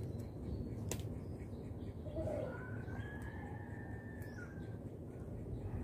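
A faint bird call over low steady background noise: one long, slightly arching note starting about two seconds in and lasting a couple of seconds. A few small clicks are also heard.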